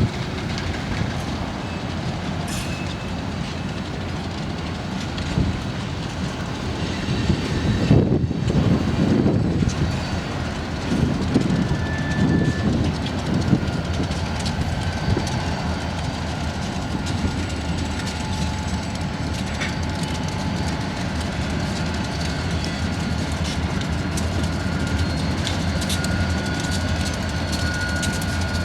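Freight train rolling through a rail yard, its wheels clicking over the rail joints over the low rumble of diesel locomotives, with a faint thin wheel squeal. It grows louder for a few seconds about a third of the way in.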